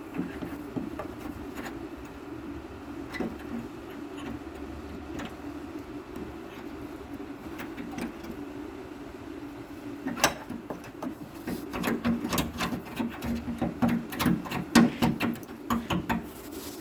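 A steady low hum throughout, joined about ten seconds in by a quick run of clicks and knocks, as of small hard parts being handled.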